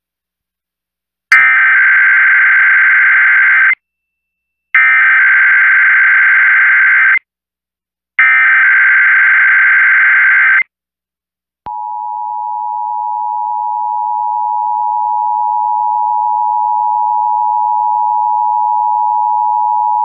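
Emergency Alert System Required Monthly Test tones: three bursts of digital SAME header data, each about two and a half seconds long and a second apart. About a second later comes the EAS two-tone attention signal, a steady dual tone held for about eight and a half seconds that grows louder over its first few seconds.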